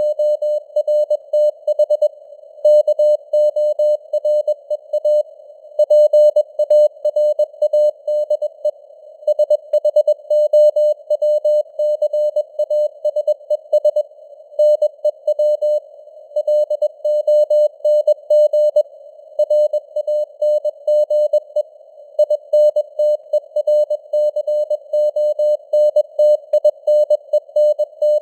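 Morse code (CW) at 21 words per minute: a single steady tone keyed on and off in dots and dashes. It sits over simulated radio receiver hiss that stays audible in the gaps between characters.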